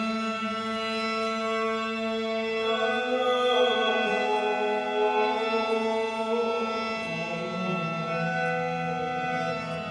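Droning vocal chant: a steady low held note with a stack of overtones, the upper tones wavering and shifting through the middle.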